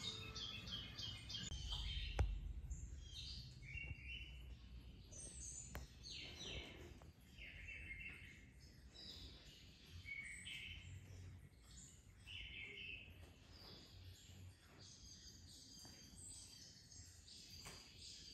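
Birds chirping and trilling, with many short high calls scattered throughout, some stepping down in pitch. A single sharp knock about two seconds in.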